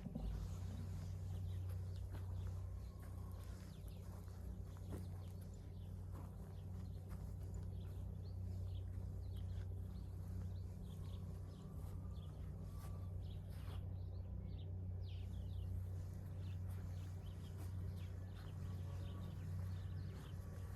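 Farmyard ambience: many short, faint chirps and calls from chickens and small birds over a steady low hum, with a few light clicks.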